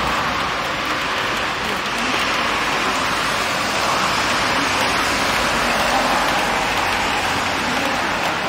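Steady rain falling on wet pavement, an even hiss with no breaks.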